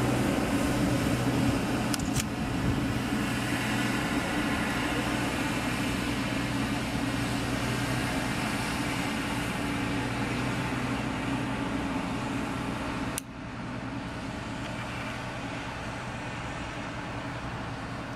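Large mobile crane's diesel engine running steadily with a low hum. About thirteen seconds in there is a click and the engine sound drops sharply in level, then runs on quieter.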